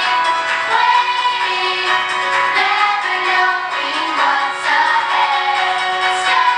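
Recorded song from a Christmas musical: singing voices over instrumental backing, continuous and steady in level.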